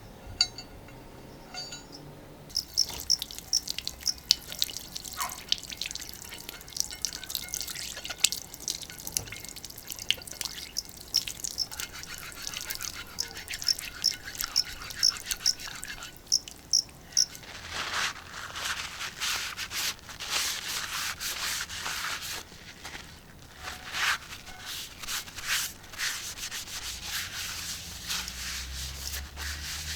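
Scratchy rubbing strokes against a thick steel griddle plate, as oil is wiped over it during seasoning. The rubbing starts about two seconds in and grows a little louder in the second half.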